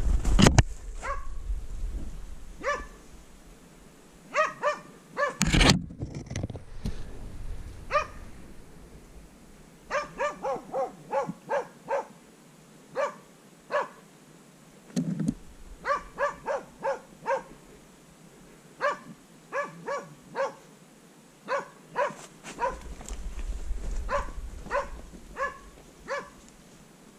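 Hunting dog barking at bay, holding a wild boar: short pitched barks in quick runs of several a second, with pauses between runs. A brief loud rustling knock about five seconds in.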